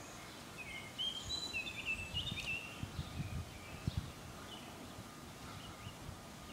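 A small bird chirping a quick run of short high notes in the first couple of seconds, with a few fainter chirps later, over faint outdoor background noise and low rumbles on the microphone.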